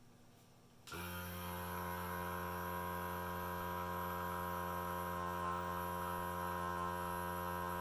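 Serene Innovations hearing aid vacuum's small fan motor switched on about a second in, then running with a steady electric hum, cleaning out a hearing aid's battery compartment.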